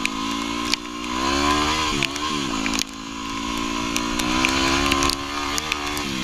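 Yamaha WR250R's single-cylinder four-stroke engine under way on a trail ride, its pitch climbing and dipping as the throttle is opened and eased off, with a sudden drop a little before halfway. Scattered sharp knocks sound over the engine.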